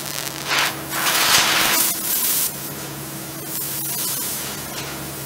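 Hissing spray of a cutting head throwing sparks across steel plate, swelling and easing several times over a steady low machine hum. It is the synthetic soundtrack of an AI-generated factory clip.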